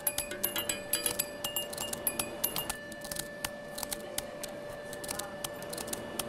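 Electronic music track: quick clicking, glassy percussion hits over a held steady tone, the hits thinning out after about three seconds.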